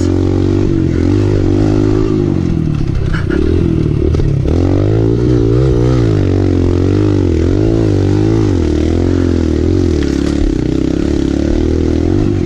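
Kawasaki KLX 140L's single-cylinder four-stroke engine running hard on a dirt trail, its revs rising and falling over and over as the throttle is worked.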